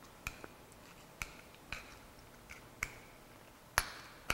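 Small, sharp clicks and snaps, about eight at irregular intervals, the last two the loudest, as a small metal tool pries at the Apple logo in a first-generation iPhone's back cover.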